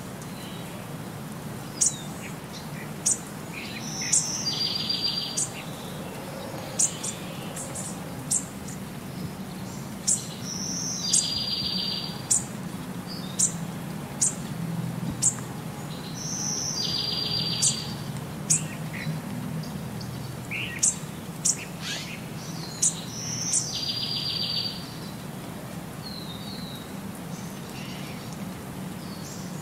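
Bird chirps: sharp high chirps with a short buzzy trill that comes back about every six seconds, over a low steady hum. It plays as one unbroken background track across the picture cuts.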